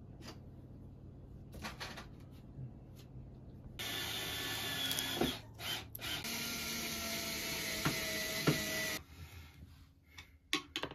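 A few light clicks and knocks, then a cordless drill-driver runs steadily for about five seconds with a whine and stops abruptly. Sharp clicks of tools and hardware follow near the end.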